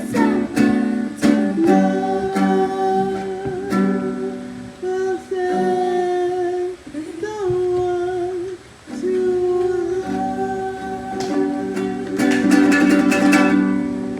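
Ukulele strummed in chords while a voice sings a slow song over it in long held notes, with a run of quick strums near the end.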